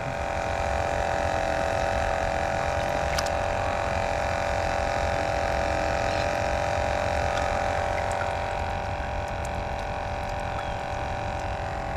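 Small battery-powered bait-bucket aerator humming steadily, with a few faint clicks.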